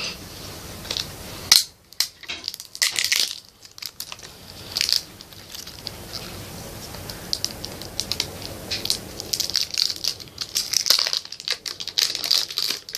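Plastic crinkling and crackling with scattered clicks and knocks as a plastic slime barrel is handled and worked open.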